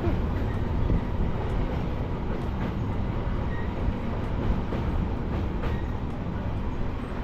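Train crossing the Hohenzollern railway bridge: a steady low rumble with a few faint clicks.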